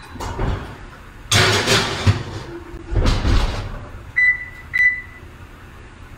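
Oven door of a kitchen range opened, a metal baking sheet slid in, and the door shut with a thump about three seconds in. Then two short high beeps from the range's control panel as its buttons are pressed.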